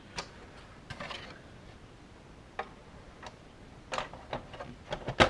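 Scattered light plastic clicks and taps as the face panel of a GM instrument cluster is fitted and handled, a few at first, then more and louder near the end.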